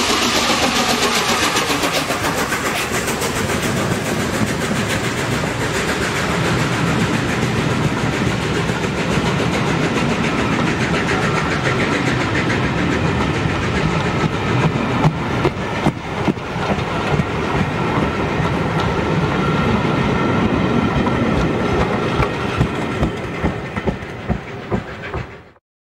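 Peppercorn A1 Pacific steam locomotive 60163 Tornado passing under steam, followed by its train of coaches. Their wheels clatter rhythmically over the rail joints, and the sound dies away near the end.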